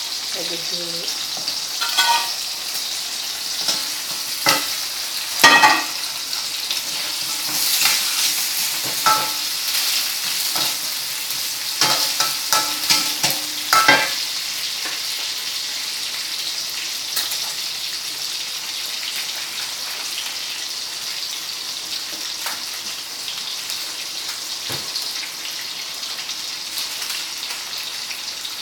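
Pieces of fried salted jambal fish and meatballs sizzling in a wok over a gas flame. For about the first fourteen seconds a metal spatula scrapes and knocks against the wok as they are stirred; after that only the steady sizzle goes on.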